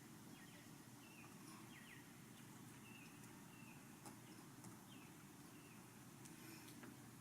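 Near silence: faint steady background noise with a few short, faint high chirps scattered through.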